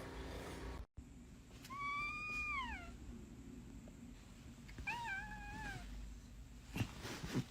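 Domestic cat meowing twice: a long meow that falls in pitch at its end, then a shorter one about three seconds later. Two short knocks come near the end.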